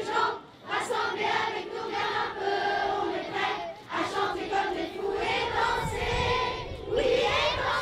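A group of voices, mostly women's, singing a song together in chorus.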